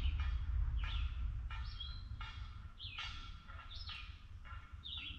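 A songbird calling in short repeated chirps with quick up-and-down pitch sweeps, roughly one every 0.7 seconds, over a steady low rumble.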